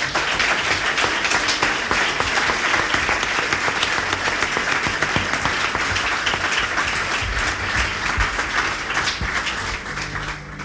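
Congregation applauding: a sustained round of many hands clapping that dies away near the end.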